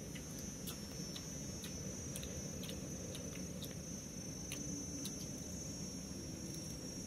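Faint, scattered crunches of crispy deep-fried chicken feet being chewed, over a steady high-pitched whine and a low background hum.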